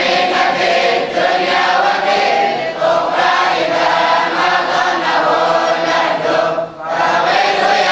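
A group of men's voices chanting together in unison, in a continuous melodic religious recitation. The chant breaks off briefly for a breath about two-thirds of the way through.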